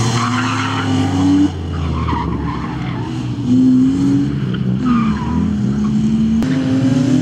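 BMW E36 320's straight-six engine revving hard under load, pitch climbing and dropping with a gear change about a second and a half in, then rising and falling again. Short tyre squeals come as the car is pushed through the corners.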